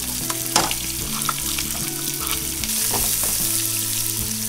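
Chopped onion sizzling in hot oil in a steel pot, stirred with a wooden spatula that knocks and scrapes against the pan. The sizzle gets louder about two and a half seconds in.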